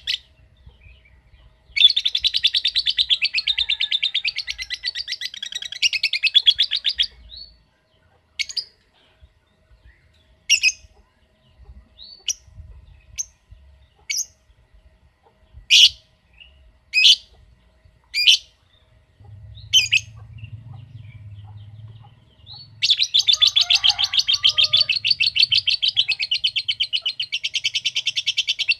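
A lovebird giving a long, rapid, chattering trill of fast repeated high notes (the 'ngekek' song), breaking off after about five seconds into scattered single chirps, then starting another long trill a few seconds before the end.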